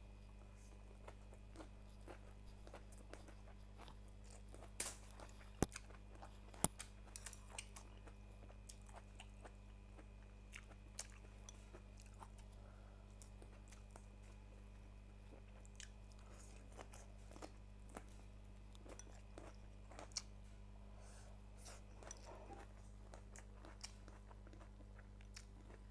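A person eating: quiet chewing and crunching with scattered small sharp clicks, over a steady low electrical hum.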